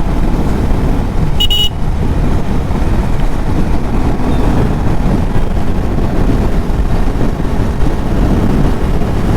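Riding noise from a KTM RC 390 with a newly installed single-cylinder engine, ridden gently on its base tune: a steady low engine rumble mixed with wind rush on the microphone. A brief high-pitched beep comes about a second and a half in.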